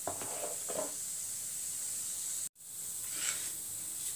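Cumin seeds sizzling in hot oil in a kadhai: a steady soft hiss while the jeera tempers. The sound cuts out for a moment a little past halfway.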